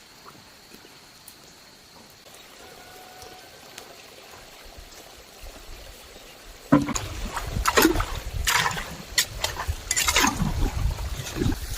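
Water splashing and sloshing in irregular bursts, starting suddenly and loudly about seven seconds in; before that only a faint steady hiss.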